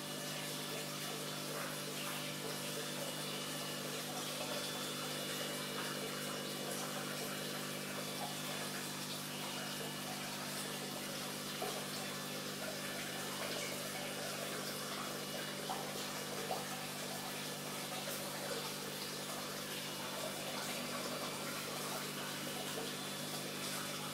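Aquarium filter pump running steadily: a low mechanical hum with a constant wash of running water.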